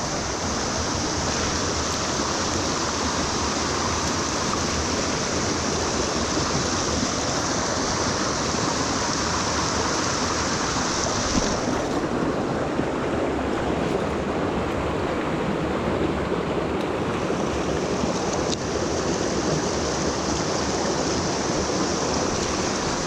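Mountain stream rushing steadily over rocks, an even wash of water noise; its hiss in the highest range falls away for several seconds around the middle and then comes back.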